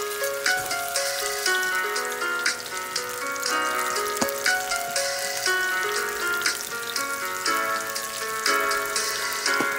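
Instrumental background music with a moving melody, over the sizzle of onion and tomato slices frying in oil in a pan.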